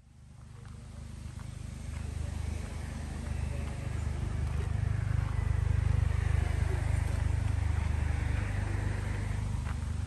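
A car passing on the road: a low engine and tyre rumble that grows louder to a peak about six seconds in and then eases off.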